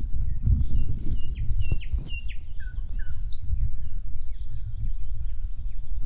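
Nightingale singing: a few loud whistled notes repeated, each sweeping sharply down, then lower whistles and a quicker run of short notes. The song sits over a steady low rumble.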